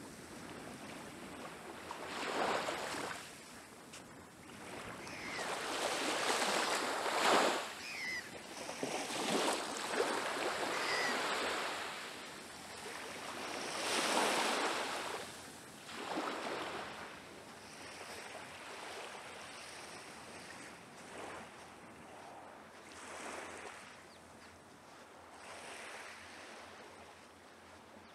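Small waves of a calm sea lapping and washing onto a sandy beach, swelling and falling every few seconds. They grow fainter in the second half.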